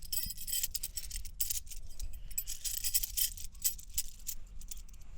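Metal tent pegs rattling and clinking against each other as they are put back into the tent's stuff bag, many quick irregular clicks.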